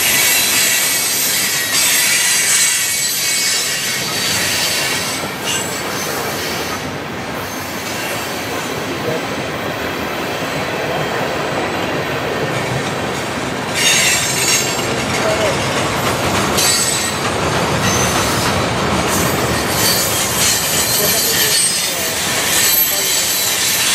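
Freight cars of a long mixed freight train rolling past close by: a steady rumble of steel wheels on rail with some clickety-clack, and wheel squeal that grows stronger a little over halfway through.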